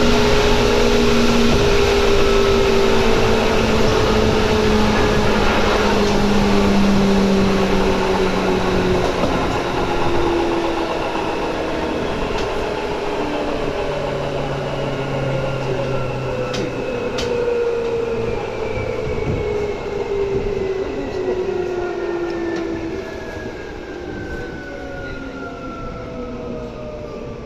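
Onboard running noise of a Seibu 2000 series electric train slowing down. Several motor and gear whines fall steadily in pitch and the rumble gets quieter. Two sharp clicks come about two-thirds of the way through.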